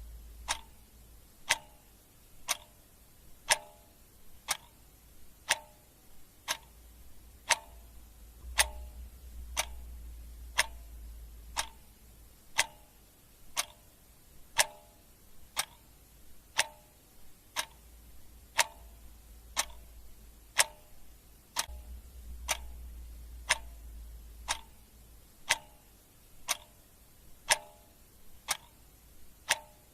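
Clock ticking sound effect, one sharp tick about every second in a steady rhythm.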